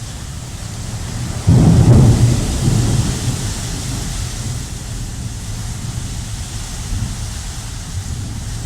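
Rain falling steadily, with a sudden thunderclap about a second and a half in that rumbles away over the next couple of seconds.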